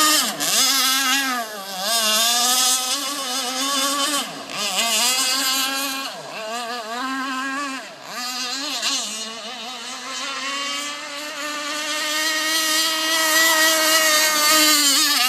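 Radio-controlled speedboat's motor running at high speed, a high whine whose pitch dips sharply several times as the throttle eases, then holds high and steady in the second half.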